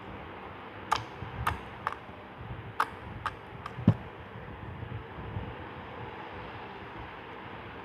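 Slime being worked by hand, giving about seven sharp clicks and pops over three seconds, the last one the loudest with a dull thud; then only a low handling rustle.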